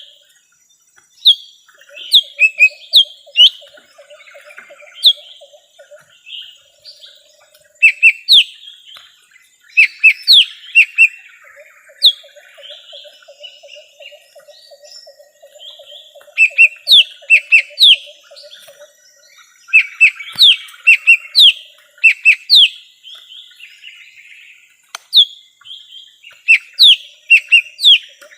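Lesser green leafbird (cucak ijo mini) singing, played as a lure call for wild birds. The song comes in clusters of sharp, quick downward-sweeping whistled notes every second or two. A low, rapid rattling trill runs underneath in two stretches.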